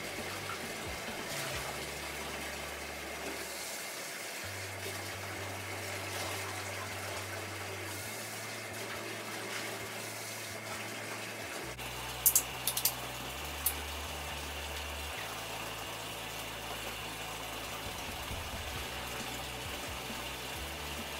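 Water running steadily from a bathtub tap while a dog is being rinsed in the tub. About four sharp clicks or knocks come a little past halfway.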